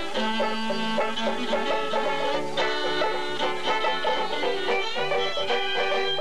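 Fiddle playing a lively folk tune with picked string accompaniment, played live into a microphone.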